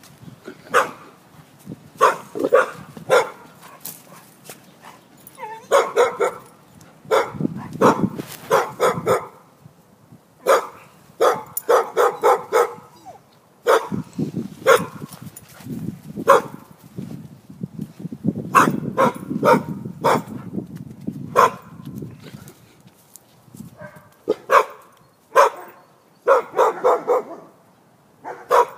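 Dogs barking in quick bursts of several sharp barks, again and again, as they play-fight.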